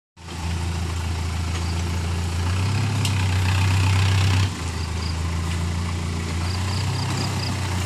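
A vehicle engine idling with a steady low hum, easing off slightly about four and a half seconds in.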